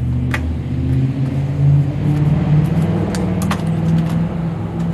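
A low, steady motor hum that shifts slightly in pitch, with a few sharp clicks and clinks as a disposable foil pan and a utensil are handled.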